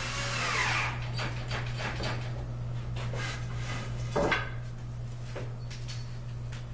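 Daybed parts being handled and set down: a scrape in the first second, then a series of knocks and clunks, the loudest about four seconds in, over a steady low hum.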